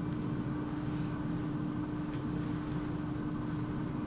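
Steady low machine hum with one constant low tone, like room ventilation or air handling.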